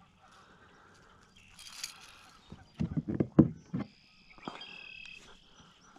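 Handling noise while a white bass is unhooked from a jerkbait with pliers: a brief rustle about two seconds in, then a burst of loud low knocks and thuds around the middle. Faint high-pitched animal calls sound near the end.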